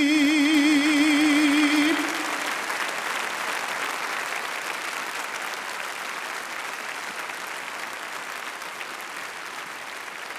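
A man's held sung note with wide vibrato ends about two seconds in, and audience applause follows, slowly fading.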